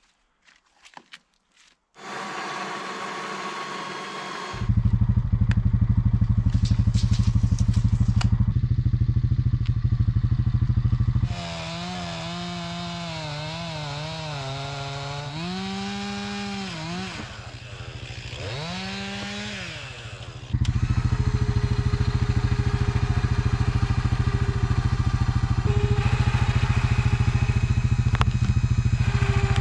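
Gasoline chainsaw cutting a large white pine log, running loud and steady at high speed. In the middle stretch the engine's pitch rises and falls several times as the load on the saw changes. It is preceded by a few light knocks, and an engine starts running about two seconds in.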